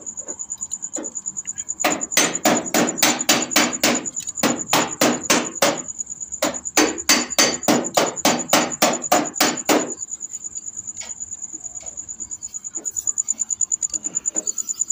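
Hand ratchet wrench clicking in quick, even runs of about five clicks a second as bolts on the timing chain tensioner are snugged down; the clicking stops about ten seconds in and only light ticking follows. A steady high insect trill runs underneath.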